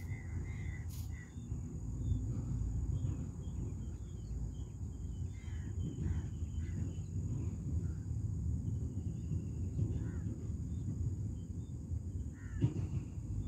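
Riverside ambience: scattered short bird chirps, a quick run of calls about a second in, over a steady high insect drone and a low rumble.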